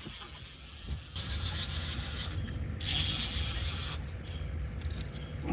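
Fishing reel being cranked while fighting a hooked flathead catfish, a steady mechanical grinding and rubbing that picks up about a second in.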